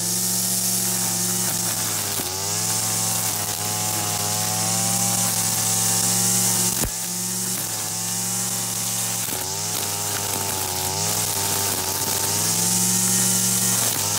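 Brushcutter engine running at high speed while an Arnetoli F-ONE nylon-line trimmer head cuts grass, its pitch wavering up and down as the line meets the growth, over a steady high hiss. A single sharp click about seven seconds in.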